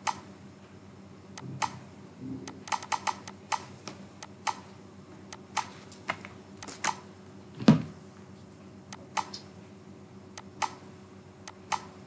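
Irregular sharp clicks of a computer mouse and keyboard being worked at a desk, with one louder, duller knock about two-thirds of the way in.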